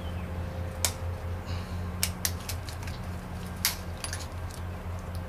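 Scattered sharp metallic clicks and taps of hand tools working a snap ring and flange on a transmission case, four of them louder than the rest, over a steady low hum.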